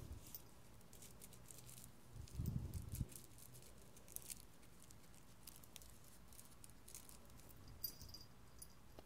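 Faint scattered ticks and rustles of a cat moving on a duvet, with one muffled low thump about two and a half seconds in and a sharper tick near the end as it leaps.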